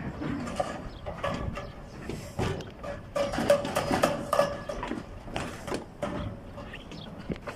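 Irregular metallic clanks and knocks of construction work on a steel reinforcement mesh, some ringing briefly.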